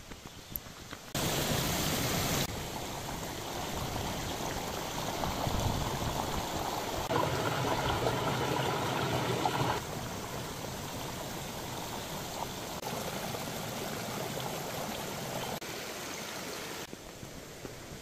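Mountain stream running over rocks: a steady rush of water that jumps abruptly louder or softer several times, loudest in the middle. The first second is quieter, with only faint light ticks.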